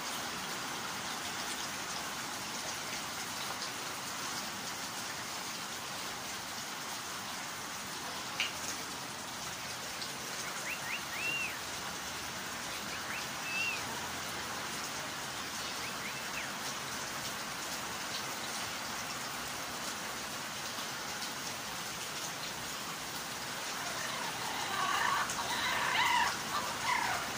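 A steady hiss like falling rain, with a few short chirps from Amazon parrots about halfway through and a louder run of parrot calls near the end.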